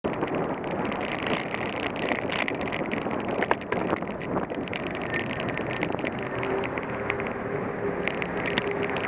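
Wind rushing over the microphone of a bicycle-mounted camera while riding, with road noise and frequent small clicks and rattles. About six seconds in, a steady low hum joins.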